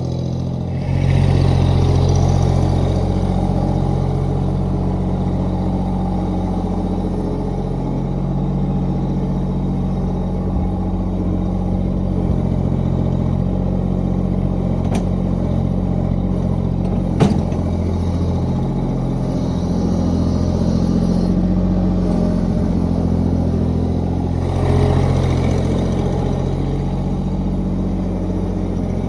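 Old farm tractor engine running steadily, getting louder about a second in and again near the end, with one sharp click about 17 seconds in.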